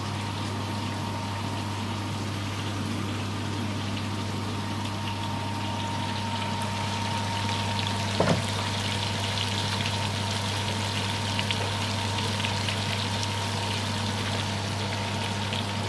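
Chicken drumsticks sizzling in their sauce in a frying pan, a steady crackle over a low constant hum. A single knock comes about eight seconds in.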